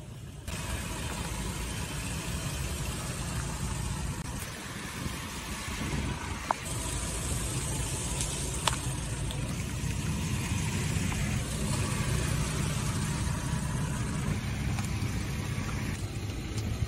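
A pickup truck's engine running at low speed as its tyres roll slowly over a loose asphalt patch, pressing it down, with a couple of sharp clicks from the grit.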